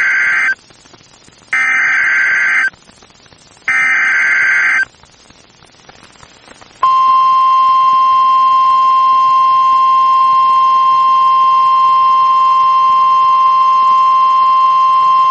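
Emergency Alert System SAME header data bursts on NOAA Weather Radio: the tail of one burst, then two more, each about a second long with a second's gap. About seven seconds in, the steady single-pitch 1050 Hz NWS warning alarm tone starts and holds. Together they mark the start of a tornado warning broadcast.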